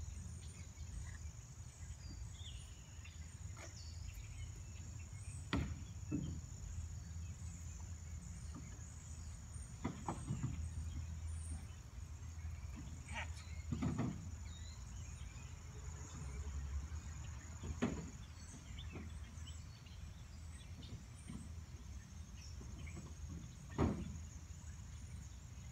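Steady high-pitched insect chorus over a low rumble, with about seven sharp knocks and taps scattered through, the loudest near the end.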